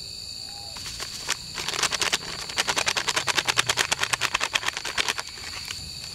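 A foil seasoning sachet shaken hard over a bowl of flour, a fast rustling rattle of about seven shakes a second lasting some four seconds. A steady high chirring of insects runs underneath.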